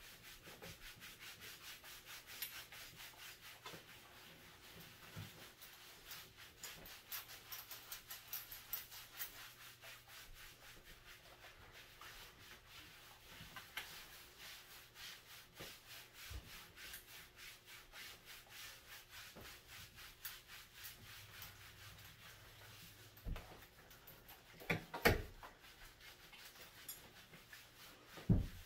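Hands scrubbing shampoo into a wet dog's fur: a quick, steady rubbing that keeps on, with a few dull thumps near the end.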